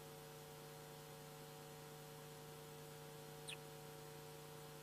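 Near silence with a faint, steady electrical mains hum, and one brief high chirp about three and a half seconds in.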